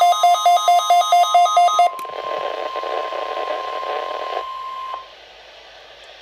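Weather radio alert beeping: rapid electronic beeps, about four a second, cut off with a click about two seconds in. They leave radio static hiss with a faint steady tone that ends about five seconds in.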